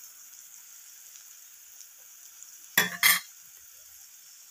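Onion and spice masala sizzling steadily in oil in a steel kadai. Two loud metal knocks about three seconds in, the stirring spoon striking the pan.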